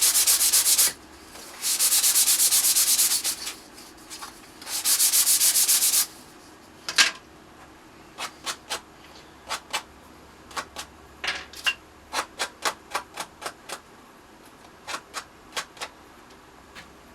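Sanding block rubbed hard over thin plywood in three long passes, a second or two each, in the first six seconds. It is a worn 3M 150-grit medium block taking the roughness off the edges. After that come about twenty light, irregular clicks and taps.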